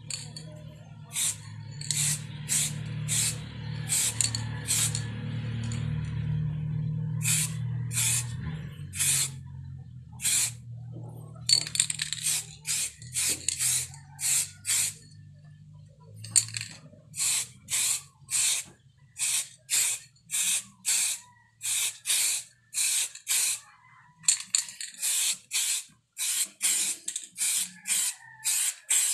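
Aerosol spray can fired in dozens of short hissing bursts, about one or two a second, with brief gaps between them. A steady low hum runs underneath through the first half and then fades.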